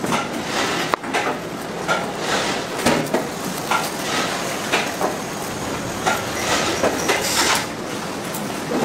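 Knife cutting raw beef on a cutting board, with hands handling the meat and bamboo skewers: irregular knocks and scrapes, about one or two a second, over a steady background noise.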